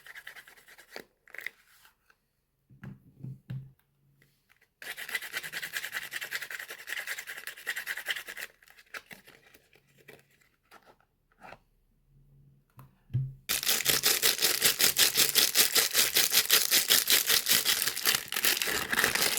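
Soap wrappers being torn open and crinkled by hand, in two long crackly stretches: one about five seconds in, lasting several seconds, and another from about thirteen seconds on. Soft handling taps come between them.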